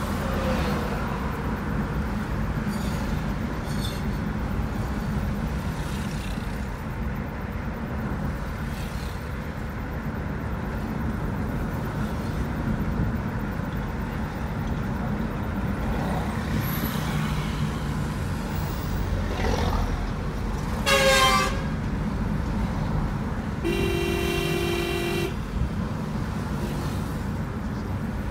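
Road traffic heard from inside a moving car: a steady low rumble of engine and tyres. About three-quarters of the way in a short vehicle horn sounds, the loudest moment, and a few seconds later a steadier horn blast holds for about a second and a half.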